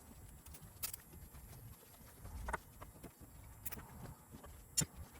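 A few scattered sharp clicks and knocks of hands handling tools and parts, one about a second in, others in the middle, and the loudest near the end.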